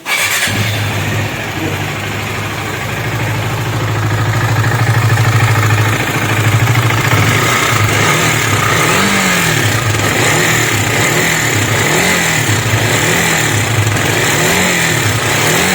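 KTM 250 Duke's single-cylinder engine running with a very nasty noise from the engine, steady at first, then given light throttle blips about once a second in the second half. The mechanic puts the noise down to tappet clearance and a badly worn timing chain and adjuster.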